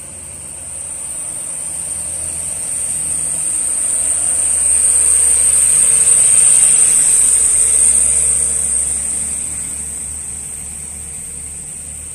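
Light diesel truck driving past close by, its engine and tyres swelling to a peak about six seconds in and then fading away. A steady high-pitched hiss runs underneath.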